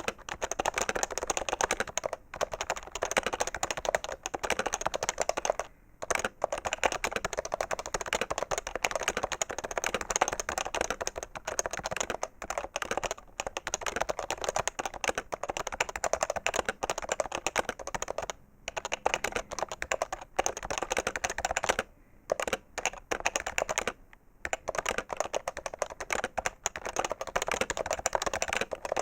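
Fast continuous typing on an HHKB Professional 2 keyboard with Topre electrostatic capacitive switches: a dense, steady run of keystrokes, broken a few times by brief pauses of under a second.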